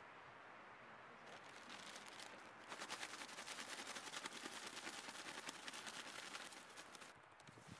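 A brown paper bag holding a donut and cinnamon sugar is shaken hard to coat the donut, giving a rapid crinkling, rattling rustle. It builds from about a second and a half in, is loudest through the middle, and stops near the end.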